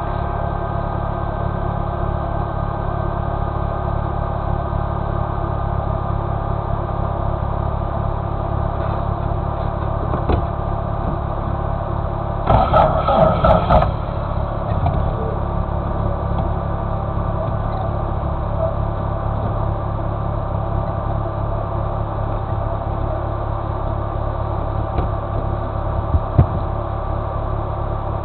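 VW-based off-road buggy engine idling steadily. About halfway through comes a brief louder burst of about a second and a half, and near the end a single sharp knock.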